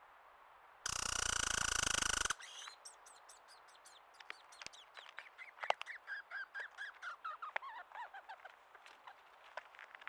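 American crow giving one loud, harsh call about a second and a half long, close to the camera, about a second in. It is followed by sharp taps, which fit the crow pecking at the rotten log, and by a rapid run of short chirping notes that fall in pitch.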